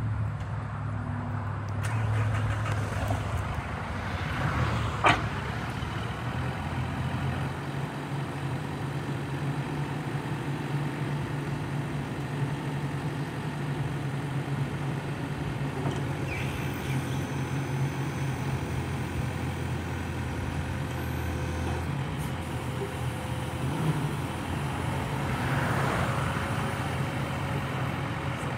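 Yale turbo-diesel forklift's engine running steadily as the forklift is driven about. A couple of sharp knocks come about five seconds in and again near the end.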